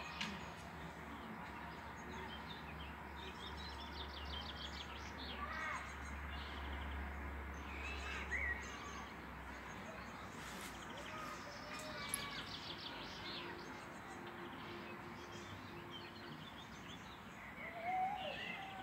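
Songbirds chirping and trilling against a steady outdoor background, with a low rumble that fades out about halfway through.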